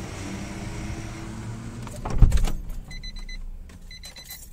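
Plastic interior trim of a car being worked open while a dashcam cable is tucked in behind it, over a steady low hum. A loud knock comes about two seconds in, and near the end there are two short, high electronic beeps about a second apart.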